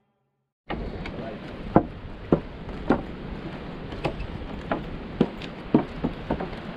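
Footsteps on the wooden planks of a jetty, about two sharp knocks a second, over a steady background rush; the sound cuts in suddenly under a second in.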